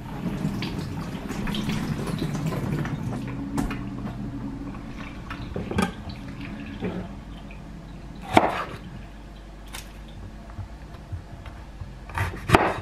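Onions frying gently in olive oil in a stainless steel saucepan, a steady sizzle. A few sharp knocks of a chef's knife on a wooden chopping board as a red pepper is cut, the loudest about two-thirds of the way in.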